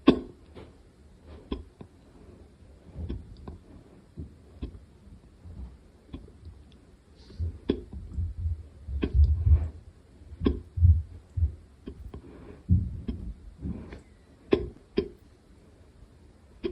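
A person hiccuping quietly: a series of short, sudden hiccups at irregular intervals, about a second or two apart.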